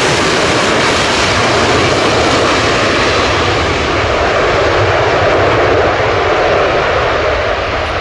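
Lockheed Martin F-35B Lightning in STOVL mode, its F135 jet engine and shaft-driven lift fan making a loud, steady roar as it hovers and descends to land vertically. The roar eases off slightly near the end.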